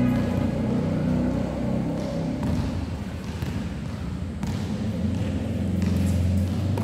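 Basketball bouncing on a hard court floor: a few separate thuds, with echo from the large hall, over a steady low rumble.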